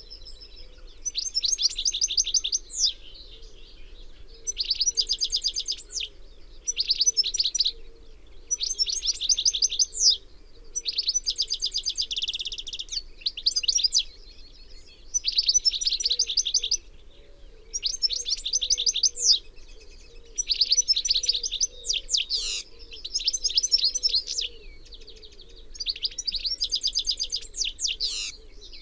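European goldfinch (Carduelis carduelis) singing: about a dozen phrases of fast twittering trills and rapid high notes, each a second or two long, with short pauses between them.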